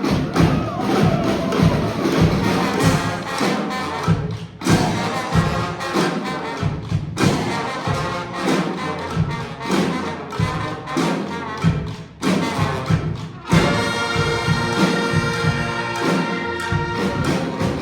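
Live honk street band of horns and drums playing, with drum strokes beating under the horns throughout; in the last few seconds the horns hold long sustained chords.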